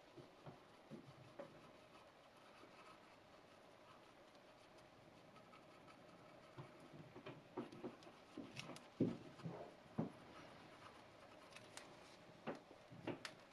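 Faint rubbing, scratching and small clicks as a cotton swab scrubs a plastic dental model's teeth and gloved hands handle the model. A cluster of louder clicks comes past the middle, and a couple more near the end.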